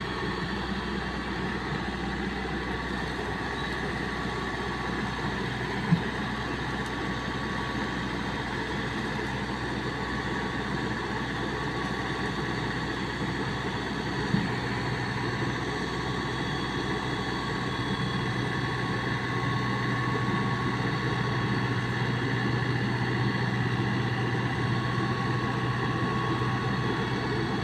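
Yanmar rice combine harvester's diesel engine running steadily. Two short knocks sound about six and fourteen seconds in, and the running grows a little louder about two-thirds of the way through.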